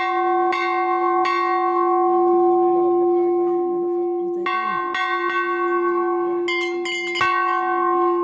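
Metal temple bells struck again and again by hand, each stroke ringing on and overlapping the next, with a quick flurry of strokes near the end.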